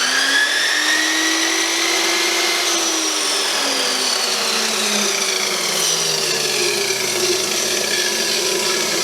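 Chicago Electric abrasive chop saw switched on, its motor and cut-off disc whirring as they spin up. From about three seconds in the pitch falls steadily while the saw keeps running loud. This is the speed controller's "1" setting, which turns out to give full speed.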